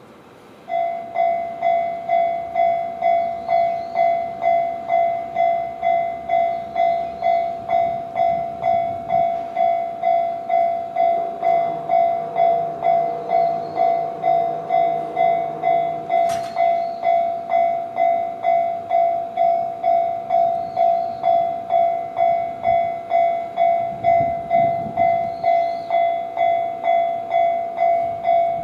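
Japanese railway level-crossing alarm with the JR standard electronic bell, starting about a second in and dinging steadily at about two strikes a second. Partway through, a 211-series electric train runs past the crossing.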